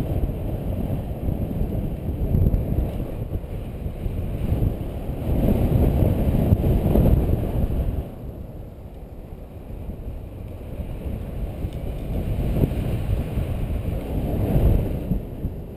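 Airflow buffeting the microphone of a paraglider in flight: a low, gusting wind rumble that swells and eases, dropping away about halfway through before building again.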